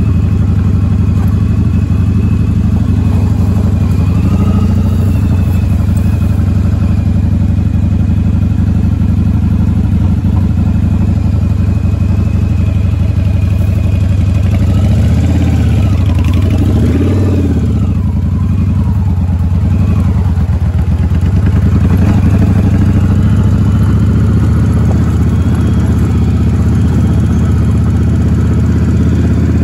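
Suzuki Intruder V-twin motorcycle engine running steadily at low speed, its revs rising and falling a few times around the middle.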